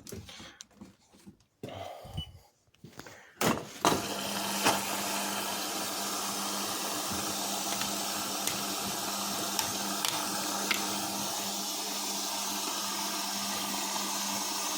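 Front-loading washing machine starting a 90-degree heavy cotton wash: a few clicks, then about four seconds in a click and a steady hum with an even hiss as the machine begins running, with occasional faint ticks.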